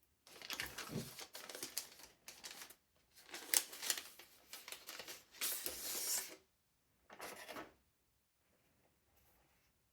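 Close handling noise: rustling and scraping like paper or cardboard, in three bursts, the first two about three seconds each and a short one near the end, then only faint rustling.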